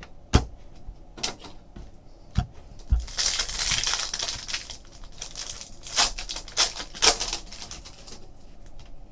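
Foil trading-card pack wrapper crinkling as it is torn open, about three seconds in, for a second or so. Sharp taps and clicks of cards being handled come before and after it.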